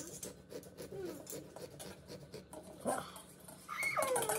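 Small serrated pumpkin-carving saw rasping through a pumpkin's shell in quick repeated strokes. Near the end comes a high whining cry that falls in pitch.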